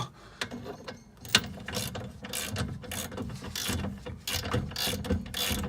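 Socket ratchet clicking in repeated strokes, in irregular runs of clicks, as the 19 mm shock absorber bolt is unscrewed.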